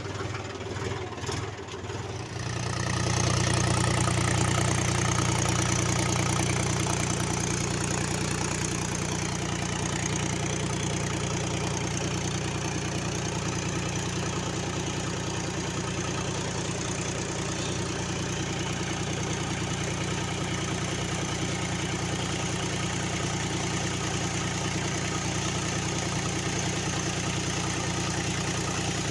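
Mahindra 265 tractor's three-cylinder diesel engine running. About two seconds in it picks up and runs louder, then settles into a steady run.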